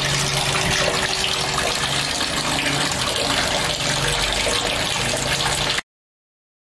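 A stream of water pouring into an empty stainless-steel dough-mixer bowl: a steady splashing rush that cuts off suddenly near the end.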